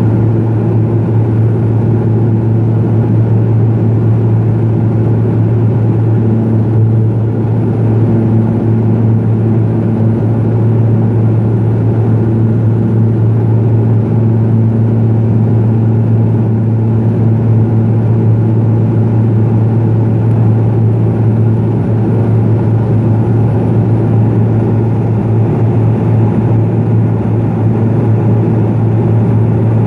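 Cabin noise of a Pilatus PC-12 in flight: its single Pratt & Whitney PT6A turboprop engine and propeller give a loud, steady low drone with a strong low hum.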